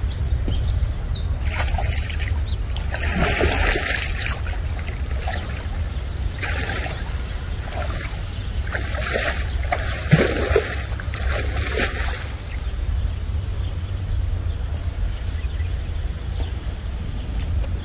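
Lake water sloshing and splashing in several bursts as a man wades chest-deep through it, the splashing stopping about two-thirds of the way in, over a steady low rumble of wind on the microphone.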